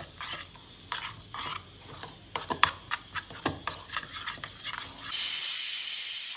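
A spoon stirring a thick mayonnaise-and-ketchup spread in a bowl, scraping and clinking against the sides in quick, irregular strokes. About five seconds in, this gives way to a steady hiss of steam escaping from a pressure cooker's weight valve.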